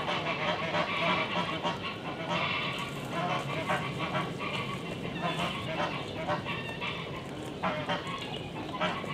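Farm poultry calling, many short calls in quick succession.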